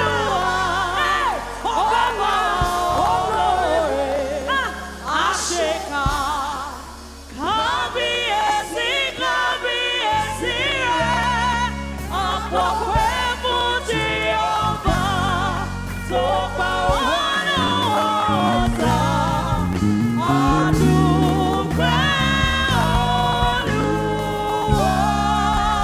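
Gospel worship singing over instrumental accompaniment: voices with strong vibrato above steady bass notes. The music drops briefly about seven seconds in, then comes back in full.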